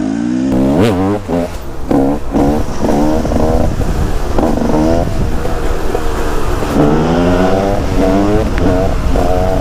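Husaberg TE 300 supermoto's two-stroke single-cylinder engine revving hard in a string of rising sweeps, each breaking off and starting again at a lower pitch, as it accelerates.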